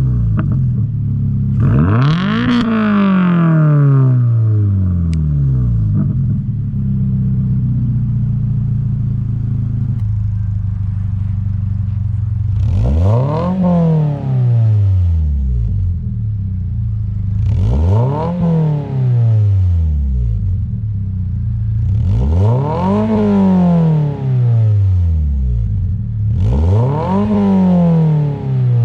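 Toyota GR86's 2.4-litre flat-four engine revved through its exhaust from idle: one rev about two seconds in, then steady idle, then four more revs about every four and a half seconds, each climbing and dropping back to idle.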